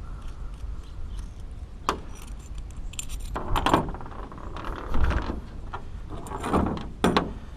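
Metal exhaust parts being handled and set down, clinking and clattering. There is a sharp clink about two seconds in, then several short bursts of metal knocks.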